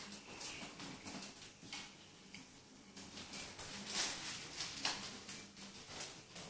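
Ocicat kittens playing with a fabric cat tunnel: irregular rustling of the tunnel fabric and light patter of paws on a hard floor, in short scattered bursts.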